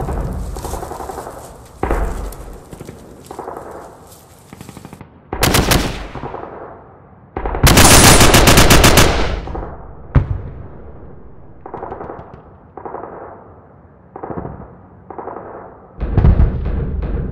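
Bursts of automatic gunfire. The loudest is a long burst of rapid shots about halfway through, with shorter bursts before it and a string of quieter bursts after, then louder fire again near the end.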